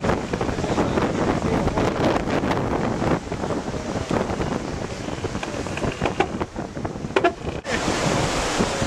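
Wind buffeting the microphone over the rushing water and spray of a Swan 45 racing yacht planing at speed. About a second before the end the sound changes abruptly to a brighter hiss.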